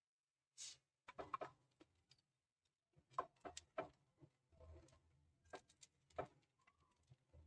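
Near silence with faint, scattered clicks and light taps from a spinach paratha cooking in oil on a non-stick pan. The clicks come in small clusters about a second in, around the middle, and again near the end.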